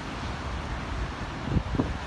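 Steady rain hiss with wind gusting against the microphone, giving a couple of brief low buffets about a second and a half in.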